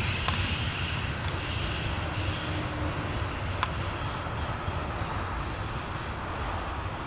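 Loaded coal hopper cars of a CSX freight train rolling past: a steady rumble of wheels on rails, with a couple of sharp clicks.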